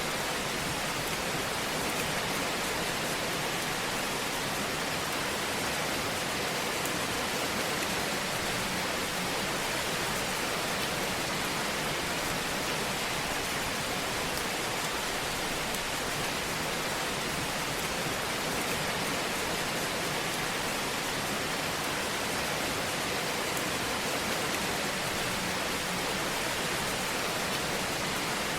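Wood fire burning in a fireplace: a steady, dense hiss with fine crackles and no change in level.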